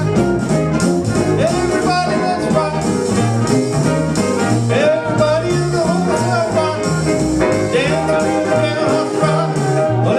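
Upbeat rock-and-roll band music with a stepping bass line and a lead melody, without sung lyrics.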